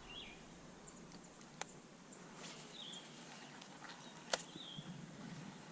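Faint outdoor ambience with a bird giving a few short chirps, and two sharp clicks, one about a second and a half in and a louder one a little after four seconds.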